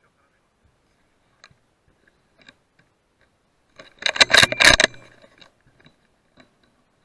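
Rifle and scope handled close to the scope's microphone: about four seconds in, a burst of scraping and rustling clicks lasts about a second, among faint scattered ticks.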